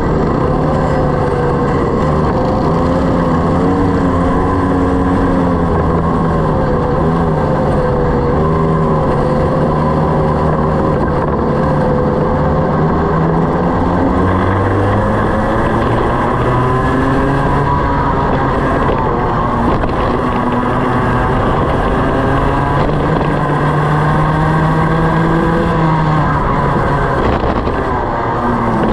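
A kart engine heard onboard, running hard and repeatedly rising and falling in pitch as the kart accelerates down the straights and lifts for corners.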